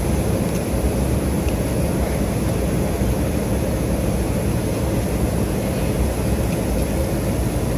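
Steady low roar of a jet airliner in flight, engines and rushing air, heard inside the passenger cabin.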